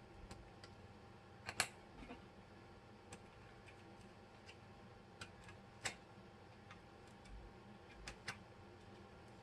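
Faint, irregular small metallic clicks and taps as the grip screws of a 1911 pistol are turned a half turn at a time with the magazine's follower. The two sharpest clicks come about a second and a half in and near six seconds in.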